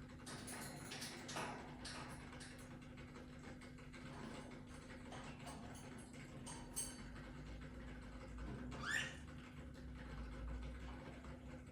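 Male cockatiel tapping its beak against the cage bars in a run of light, irregular clicks, beak-tapping being one of the signs that a cockatiel is male. About nine seconds in comes one short upward-sweeping chirp.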